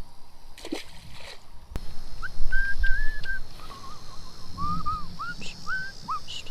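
A dog whimpering: a run of short, high, thin whines, some rising and some falling, starting about two seconds in.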